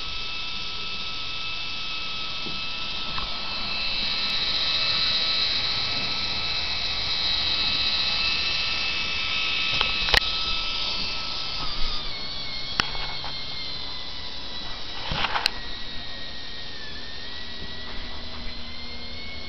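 Small battery motor and plastic gear train of a K'NEX model 4x4 truck, geared very low, running with a steady high whine. The whine drops in pitch a little past halfway, and a few sharp plastic clicks break in.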